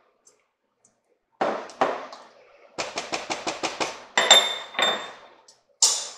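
Wire whisk clicking and rattling against the sides of a stainless steel pot of thick sauce, quick clicks about eight a second, then a few louder clinks, one with a short ringing note.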